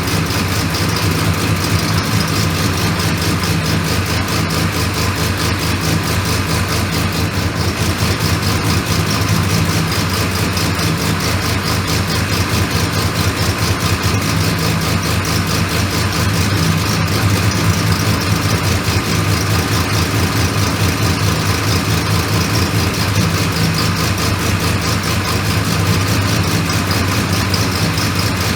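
Turbocharged 3.8-litre Ecotec V6 in a Holden Commodore idling steadily on its freshly rebuilt turbo, with a fast, even exhaust pulse.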